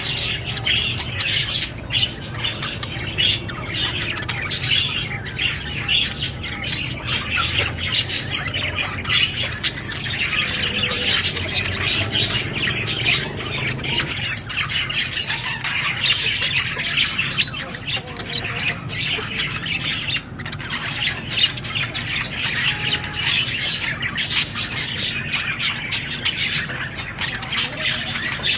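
Budgerigars chirping and squawking in a continuous, busy chatter of quick sharp notes.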